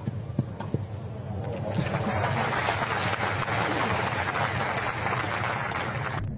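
Tennis crowd applauding after a point won. A couple of sharp knocks come in the first second, then the clapping swells in about two seconds in and holds steady until it cuts off abruptly near the end.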